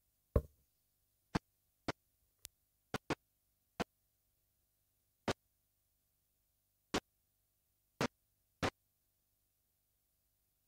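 A thump followed by about ten sharp, isolated clicks or taps at uneven intervals of half a second to a second and a half, with near silence between them.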